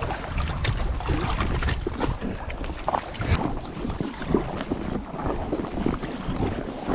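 Wind buffeting the microphone in a heavy gusty rumble, with water splashing around an inflatable kayak.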